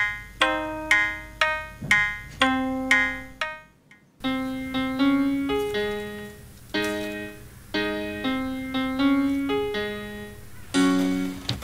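Background music: a keyboard tune of separate notes that each die away. It stops about four seconds in and, after a short gap, another keyboard tune starts.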